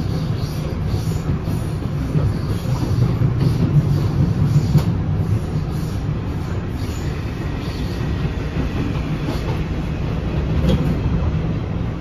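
PATH PA5 rapid-transit car running along the track, heard from inside the car: a steady low rumble with a run of short clicks from the wheels, and a faint high whine for a couple of seconds past the middle.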